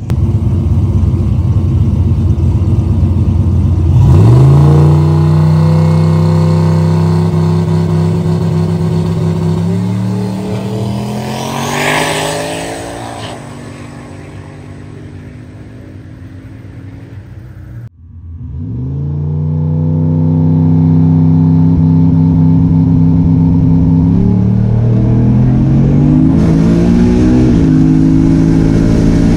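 Car engine pulling up in revs and then running at a steady pitch, stepping up in pitch twice more. A louder rush goes by about twelve seconds in. The sound cuts off abruptly partway through, then an engine climbs in revs again and holds.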